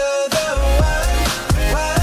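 A song with a heavy beat: deep bass and kick drums whose pitch drops sharply on each hit, about two a second, under a gliding melody line.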